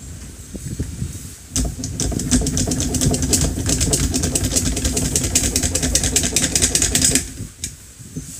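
.22LR cartridges being stripped out of an AR-type .22LR conversion magazine with a hand unloader tool: a fast, continuous run of small metallic clicks. It starts about a second and a half in and stops suddenly about seven seconds in.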